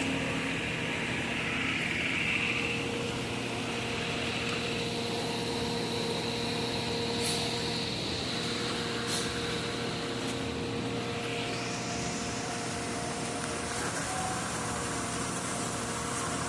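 An engine running steadily at constant speed, with a few faint clicks.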